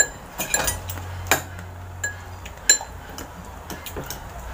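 A spoon clinking against ceramic plates and bowls: a string of sharp, ringing clinks at uneven intervals, about eight in all.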